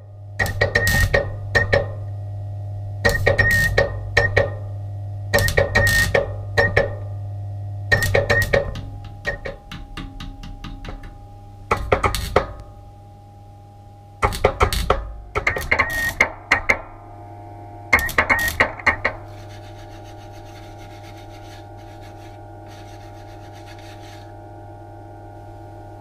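MIG welder stitch-welding a steel patch panel: about eight short bursts of crackling, each a second or so long and a couple of seconds apart, stopping about 19 seconds in. A steady low hum runs underneath.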